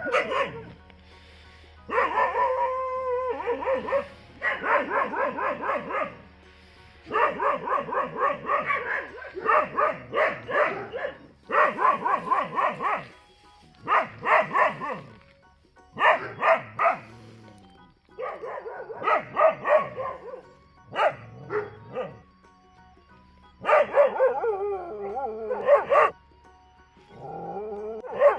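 Dog barking in rapid volleys: about a dozen bursts of quick, repeated barks, each lasting a second or two, with short pauses between them.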